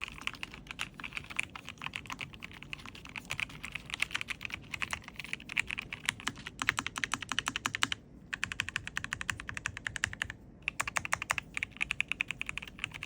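Fast typing on a Keychron V6 Max mechanical keyboard with red linear switches, low-profile keycaps and a plastic case: a quick, continuous run of key clacks. The typing breaks off briefly about eight seconds in and again about ten and a half seconds in.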